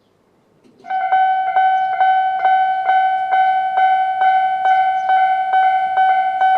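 Japanese railway level-crossing alarm of the old standard type, starting about a second in and ringing a steady electronic ding about four times a second. Only one tone sounds: the crossing's second, lower-pitched tone is missing.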